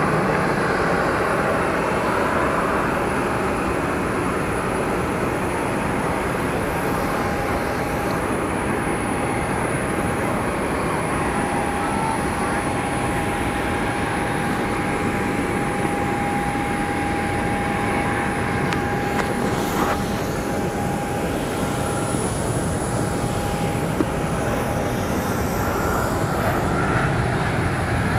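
Jet airliner engine noise: a steady, even roar, with a thin whine that holds steady through the middle stretch.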